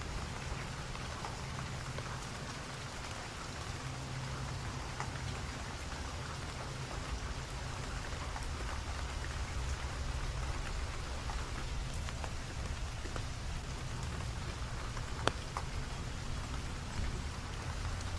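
Steady rain falling, with scattered drops ticking close by and one sharper drip about fifteen seconds in, over a steady low rumble.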